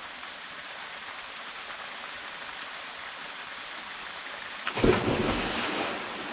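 Steady rush of a waterfall pouring into a pool. About five seconds in comes one loud, deep splash that dies away over a second or so, like a person dropping into the deep pool off a rope swing.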